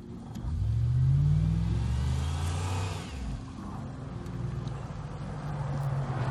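Truck engine revving up hard about half a second in, holding high for a couple of seconds, then easing off and running on with a slowly rising pitch.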